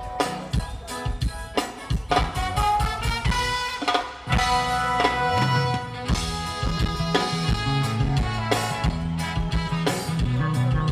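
Live band playing an instrumental passage during a stage sound check, with a drum kit and pitched instruments.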